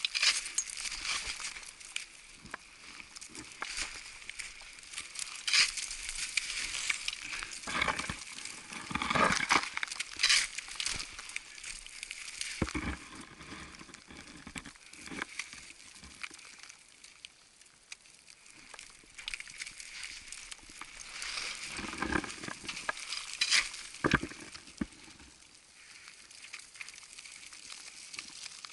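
Crunching and scraping of snow with rustling of clothing and climbing gear as a climber moves through deep snow, in irregular bunches of louder crunches separated by quieter stretches.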